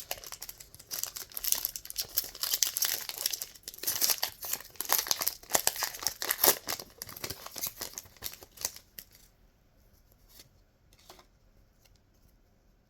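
Foil wrapper of a Pokémon card booster pack being torn open and crinkled, a dense run of tearing and crackling that dies away about nine seconds in, leaving a few faint taps.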